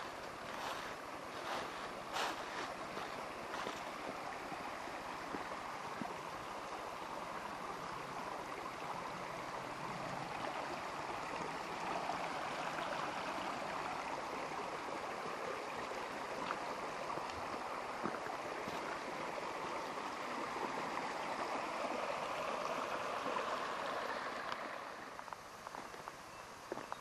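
A small woodland stream babbling over stones, steady and louder through the middle, easing off a little near the end.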